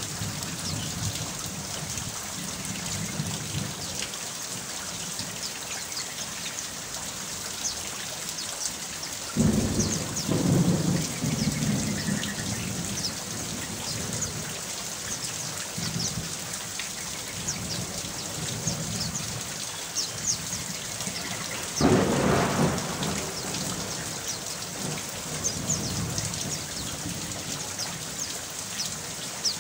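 Steady rain with a patter of drops, broken by two rolls of thunder, one about nine seconds in and another about twenty-two seconds in.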